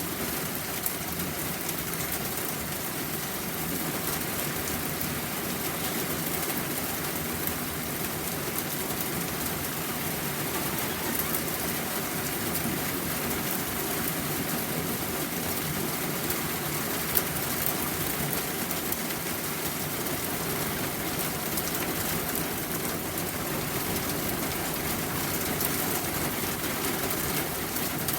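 Steady rain falling, an even hiss of drops with fine ticks of individual drops striking a surface.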